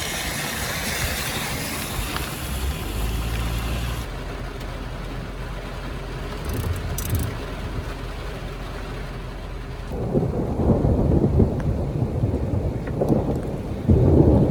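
Heavy rain pouring onto the metal roof of a cargo van, heard from inside. A low, irregular rumble of thunder comes in about ten seconds in and grows louder toward the end.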